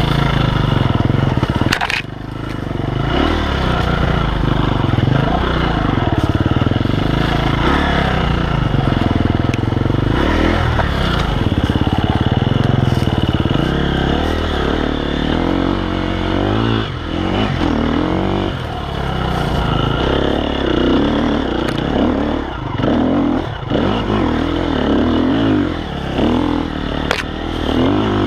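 KTM 250 EXC-F single-cylinder four-stroke enduro bike with an Akrapovic exhaust, ridden hard on a tight woodland trail: the engine revs up and falls back every second or two as the rider opens and shuts the throttle through the turns. Recorded on board, with occasional knocks and scrapes from the bike over the ground.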